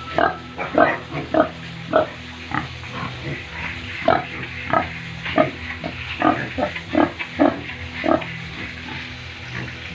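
Pigs grunting: short grunts every half second or so, thinning out near the end, over a steady low hum.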